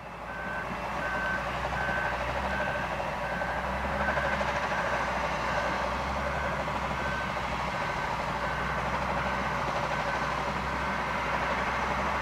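Reversing alarm on a heavy earthmoving machine, beeping steadily a little under twice a second over the steady rumble of a diesel engine. It fades in at the start.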